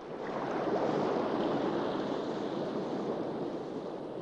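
Steady rushing wash of water like surf, swelling in over the first second and then holding even.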